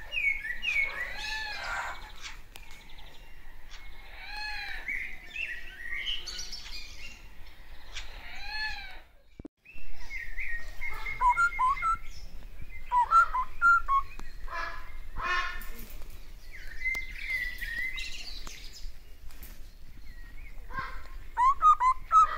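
Crimson rosella calling: a long series of short chirps and whistled, warbling notes, with a quick chattering run near the middle. There is a brief gap about nine seconds in.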